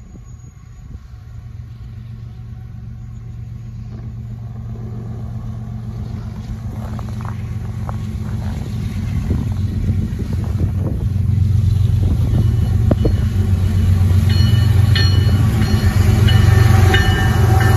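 GE ES44AC diesel-electric locomotive, with a GEVO-12 engine, leading an intermodal freight train on approach. Its low engine drone grows steadily louder as it nears and reaches the listener near the end.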